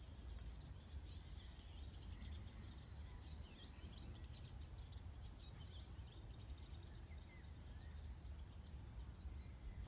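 Faint twittering of small birds, a quick run of short high chirps in the first several seconds, over a steady low rumble.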